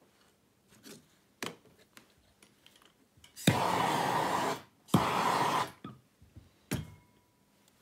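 MAP gas hand torch fired in two short bursts, each about a second long, a steady hiss of flame that starts with a sharp pop, heating twisted wire joints to melt flux and solder. A few short knocks of handling before and after.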